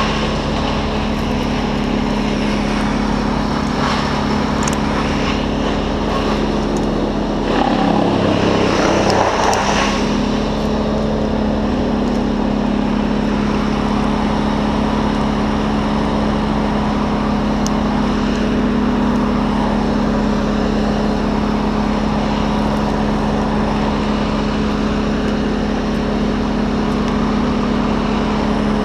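An engine running steadily throughout, with a brief dip in pitch and a louder stretch about eight to ten seconds in.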